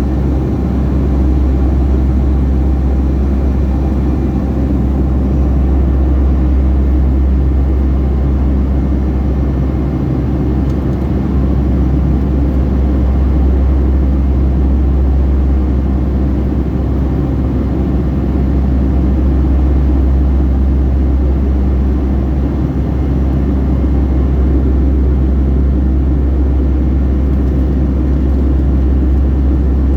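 Steady cabin drone of a Boeing 757-300 in flight, heard from a seat inside the cabin: a deep, even rumble of engine and airflow with a steady hum above it.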